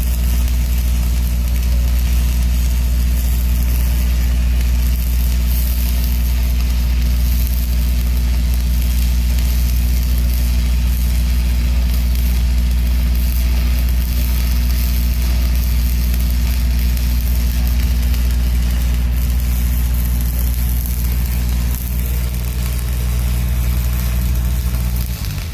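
Welding machine running with a steady, loud low hum, with a constant hiss over it; the hum drops away right at the end.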